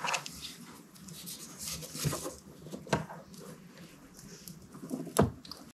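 Quiet handling noises of two small screws being put in to fasten a part: scattered light clicks and scraping, with a sharper click about five seconds in.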